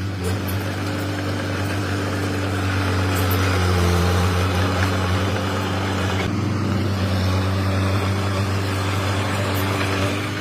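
Komatsu D21P crawler bulldozer's diesel engine running steadily, its note shifting slightly about four seconds and again about six seconds in.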